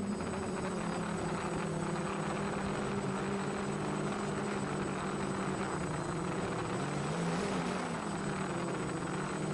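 F450 quadcopter's four Turnigy 2830 1000KV brushless motors and propellers buzzing in flight: a steady hum whose pitch wavers briefly about seven seconds in as the throttle changes.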